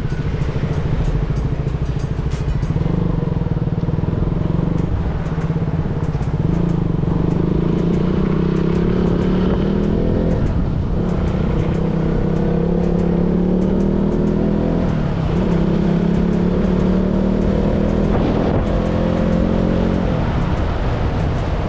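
KTM 200 Duke's single-cylinder four-stroke engine running under way, rising in pitch as the bike accelerates, with short drops at gear changes about ten and fifteen seconds in, then easing off near the end.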